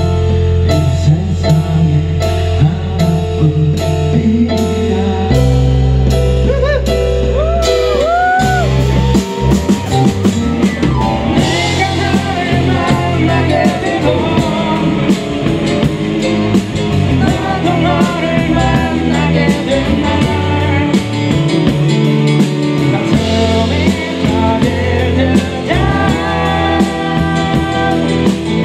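Rock song with singing, electric guitar and drum kit keeping a steady beat; the band gets fuller and busier from about eight seconds in.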